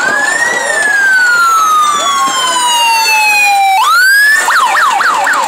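Police escort sirens: a slow wail rising and then falling steadily, which switches abruptly about four seconds in to a fast yelp of rapid rises and falls, with a fainter second siren sweeping underneath.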